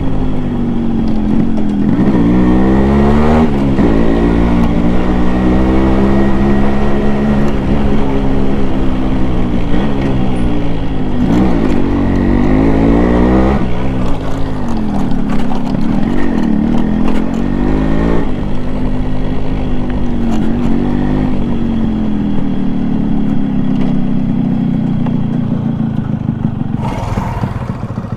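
Single-cylinder two-stroke engine of a 1991 Yamaha RX100 motorcycle running under way, its pitch climbing and then dropping sharply several times as the bike accelerates and shifts gear.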